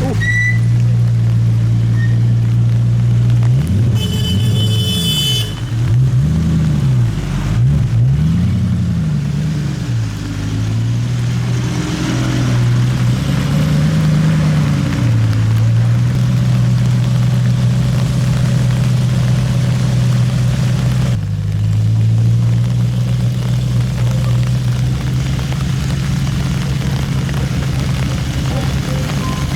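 TVR 350i V8 engine heard from inside the car, its revs rising and falling several times in the first half as the car is driven at low speed, then holding steady with a brief dip about two-thirds of the way through. A short high-pitched squeak about four seconds in.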